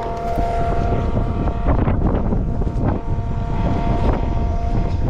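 Milwaukee cordless transfer pump running, a steady motor whine as it pumps water through its suction hose, with wind buffeting the microphone.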